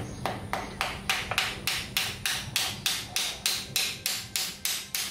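A wooden concrete form being struck again and again with a piece of wood: a fast, even run of sharp knocks, about four a second, that grows louder after the first second.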